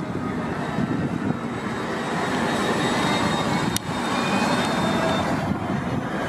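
City transit bus accelerating away through an intersection, its engine running steadily with a rising whine. A single sharp click comes near the middle.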